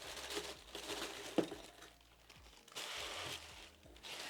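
Packaging crinkling and rustling as it is handled during an unboxing, with one sharp tap about a second and a half in.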